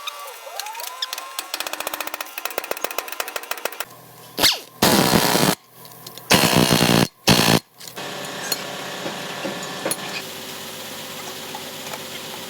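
A run of rapid clicks that slow down over the first few seconds, then three short, loud bursts of a power tool, the last one briefly, over a steady hum.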